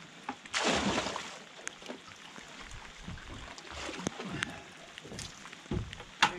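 Water from a plastic bucket tipped over a boat's side, splashing into the sea for about a second, then softer sloshing as the bucket is dipped over the side again. A sharp knock near the end.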